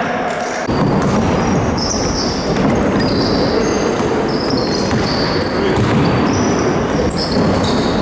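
Basketball being dribbled and sneakers squeaking on a gym's wooden court, echoing in the hall; the busier play sound sets in abruptly under a second in.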